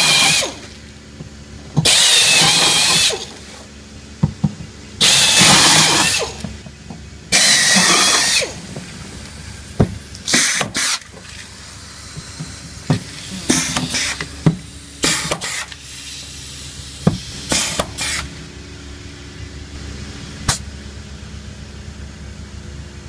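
Pneumatic air drill run in four bursts of about a second each, a high whine, drilling through a metal angle strip into a composite panel. It is followed by a pneumatic rivet gun setting blind rivets: a string of short sharp pops and hisses.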